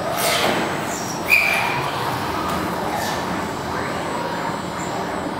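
Five-axis CNC machine milling a foam block: a steady machine noise from the cutting spindle and moving axes, with a few sweeping rises and falls in pitch and a short high squeak about a second in.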